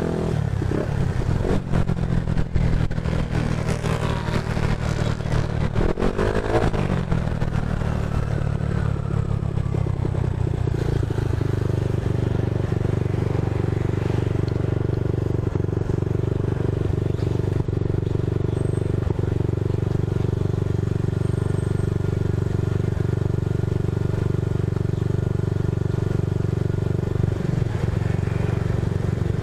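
Yamaha Mio i 125 scooter's single-cylinder engine moving slowly through traffic, then idling steadily at a stop from about ten seconds in.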